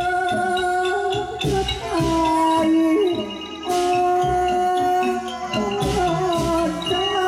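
Live accompaniment music for a Thai likay dance: a held melody line that slides and wavers between notes, over drum strikes and rattling percussion, with no singing.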